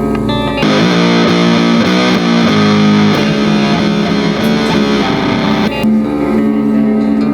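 Doom-style instrumental music at 100 bpm: distorted electric guitar with bass. A denser, heavier section comes in under a second in and drops back to a sparser part near the end.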